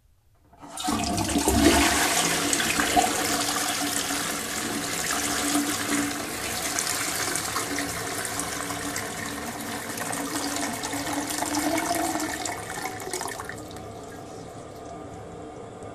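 Toilet flushing: a loud rush of water starts about a second in and runs for some twelve seconds, then drops near the end to a quieter steady hiss.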